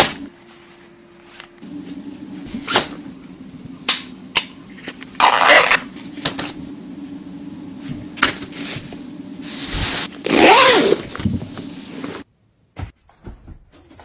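Rustling, crinkling and light knocks of toiletry packets and small items being handled and packed into a fabric tote bag, over a steady low hum. It drops almost to silence about twelve seconds in.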